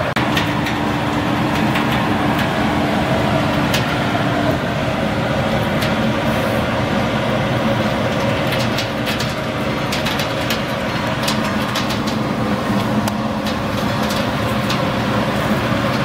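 Mesh belt peanut roasting machine running with a steady mechanical hum, with scattered light clicks throughout.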